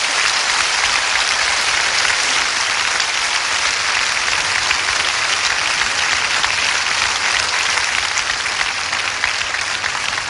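A large congregation applauding steadily, clapping in praise, easing off slightly near the end.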